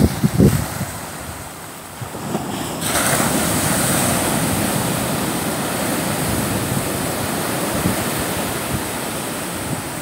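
Low wind buffeting on the microphone at first, then, about three seconds in, a sudden switch to the steady rush of small waves breaking and washing in among rocks on the beach.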